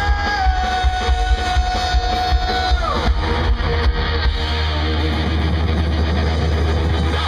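Live punk rock band playing loud, with electric guitars and drums. A long held note drops away about three seconds in, and the drums stop about halfway through, leaving a sustained ringing chord and a low held bass note.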